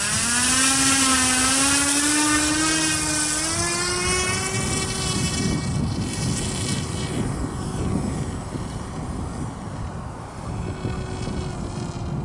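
Electric motor and propeller of a radio-controlled Quicksilver ultralight model run up near full throttle for a crosswind takeoff. Its whine rises in pitch over the first few seconds, then fades after about six seconds as the plane flies off, over steady wind rumble on the microphone.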